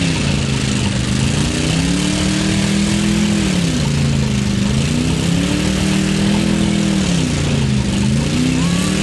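Off-road truck engine revving hard, its pitch climbing and sagging about three times as the throttle is worked, over a steady rushing noise.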